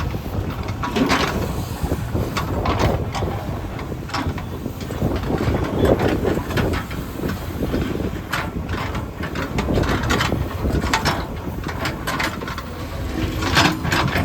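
Heavy construction machinery's diesel engine running, with repeated clanks and scraping knocks throughout. A steadier engine note comes up near the end.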